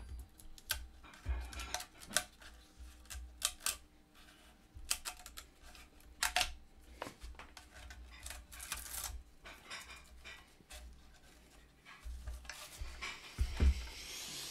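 Handling noise from dismantling a transistor radio's front: a string of small clicks, taps and scrapes as the decorative trim strips are worked off and the grille panel is freed, with a longer scraping rustle near the end as the grille comes away.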